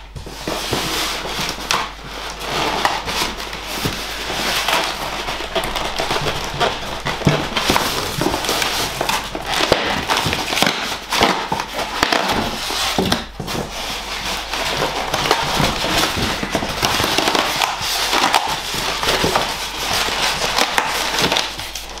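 Cardboard box and polystyrene foam packing being handled and pulled apart, a continuous crackling and rustling with many small clicks and scrapes.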